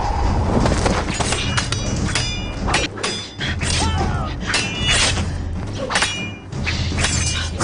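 Martial-arts film fight soundtrack: a rapid string of weapon clashes and hits, several blows ringing metallically, over a low, steady music score.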